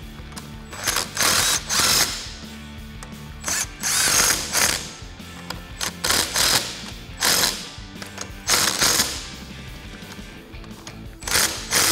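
Cordless impact gun with a 15 mm socket hammering in repeated short bursts as it runs down and tightens the nuts holding a billet aluminium leveling spacer onto a strut assembly.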